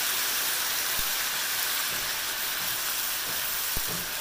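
Oyster-sauce mixture sizzling with a steady hiss in a hot pan of fried tofu cubes as they are stir-fried, with two light knocks of the utensils against the pan, about a second in and near the end.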